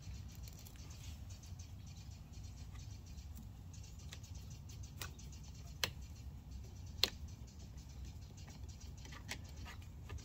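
Phillips screwdriver turning the terminal screw on a small 12-volt starter battery: faint scratchy clicks and scrapes of metal on metal, with two sharper clicks about six and seven seconds in.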